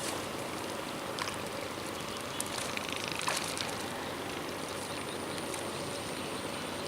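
Steady outdoor background noise, with a faint high steady tone above it and a few light clicks about one, two and a half, and three seconds in.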